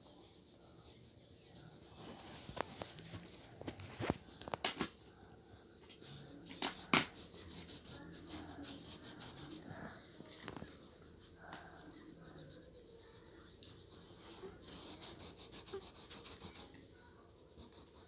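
Crayon scribbling on paper as a child colours in circles on a worksheet: rapid back-and-forth rubbing strokes. The strokes come in two spells, starting about six seconds in and again near the end, with a few sharper taps between.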